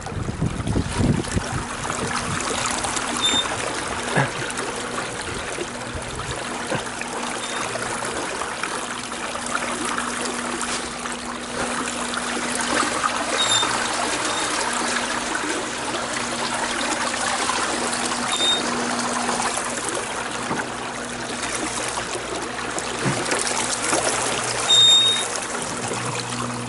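Water trickling and lapping steadily, with a faint steady low hum under it and a few very short high-pitched tones scattered through.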